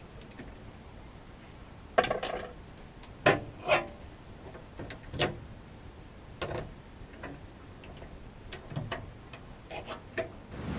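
Scattered light knocks and clicks, about a dozen at irregular intervals, a few of them sharper than the rest.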